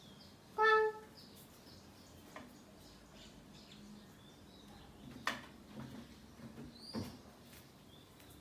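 A short animal call with a steady pitch about half a second in, over faint high bird chirping, with two sharp clicks about five and seven seconds in.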